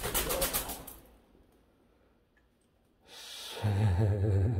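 Feral pigeon taking off from a stairwell step, its wings clapping rapidly for about a second. Near the end comes a breathy exhale, then a low, drawn-out vocal sound.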